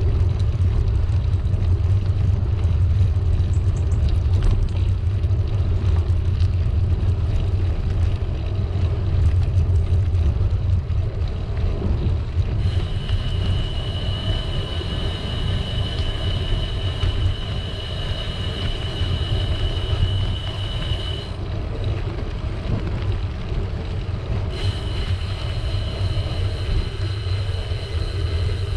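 Airflow buffeting the microphone of a camera on a moving bicycle, a steady low rumble mixed with tyre noise on a tarmac path. A steady high whine comes in about halfway through, stops some eight seconds later, and returns near the end.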